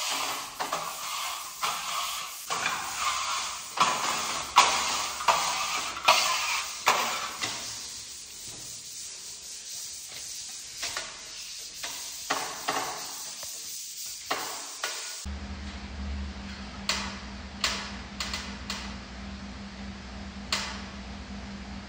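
Steel trowels scraping plaster across a wall and through material in a tray: a run of short scraping strokes, about one or two a second. About two thirds of the way in a steady low hum comes in, and the strokes become fewer.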